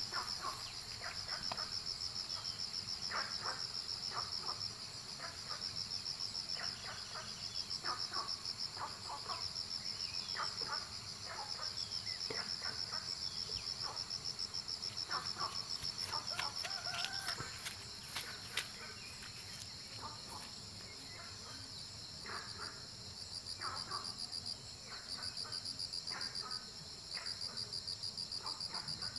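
Insects trilling: a high, rapidly pulsing trill in long runs broken by short pauses, with a fainter, higher second trill joining in the second half. Scattered brief chirps and clicks sound beneath it.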